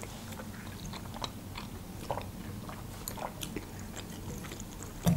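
Quiet chewing of sushi rolls, with soft, scattered mouth clicks.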